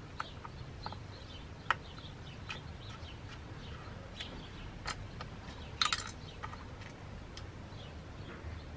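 Small Torx screwdriver driving the tiny screws back into a TomTom Rider 400 sat nav's metal side panels: scattered light clicks and taps of the tool on the screws and case, with a cluster of sharper clicks about six seconds in.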